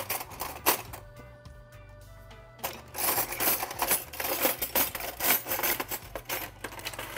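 Background music with dense, clicking percussion. It is sparse for a moment, then turns busy from about three seconds in.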